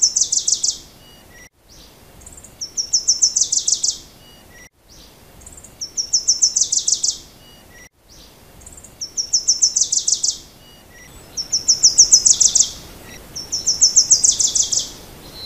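A songbird singing the same short phrase over and over, about every two and a half to three seconds: a rapid run of about ten high notes that ends on a lower part. A faint steady hiss lies between the phrases, broken by a few brief drop-outs.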